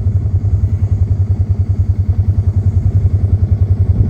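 A vehicle engine running steadily, with a fast, even low throb.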